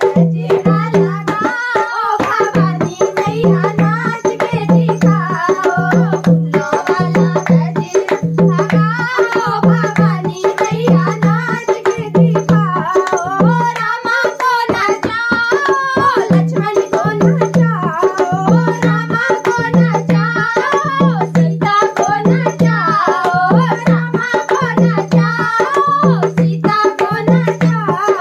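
Two women singing a Hindi devotional bhajan to a harmonium and a hand drum. The drum keeps a steady beat of a little more than one stroke a second, which drops out for a moment about halfway through.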